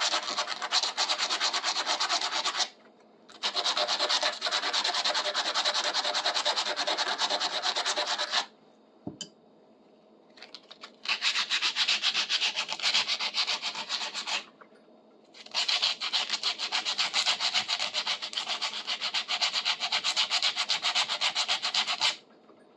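Hand sanding with a scrap of sandpaper on a cast metal shingle puller, in quick back-and-forth scratchy strokes. It comes in four bouts with short pauses between them.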